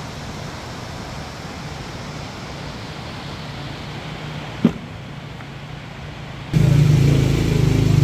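Steady rush of a mountain stream, with one sharp knock just before five seconds. About six and a half seconds in, a louder, steady low hum starts suddenly.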